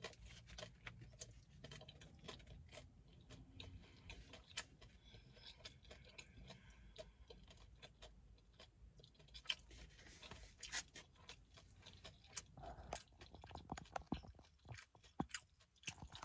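Faint close-up chewing of a mouthful of homemade beef taco, with scattered crunches and mouth clicks.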